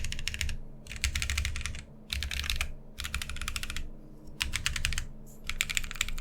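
Typing on a TGR x Linworks Dolice 60% Alice-layout mechanical keyboard: a sandwich-mount board with a polycarbonate plate, no foam, stock KLC Rubrehose Brown switches and PBT keycaps, giving a light, clacky sound. Fast runs of keystrokes are broken by short pauses.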